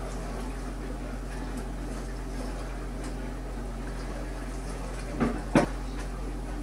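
Steady low hum with faint handling noise as grease is worked by hand around a washing machine drum's spider shaft, then two sharp knocks about five seconds in, the second louder.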